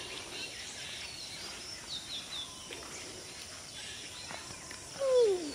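Rural outdoor ambience with birds chirping, a few short high chirps about two seconds in. Near the end, a brief loud call sliding down in pitch.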